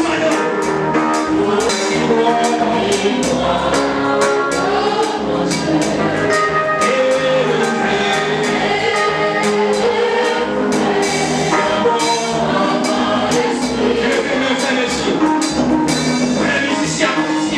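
Gospel worship singing: a man leading a song into a microphone, with other voices joining and a steady percussion beat of about three strokes a second.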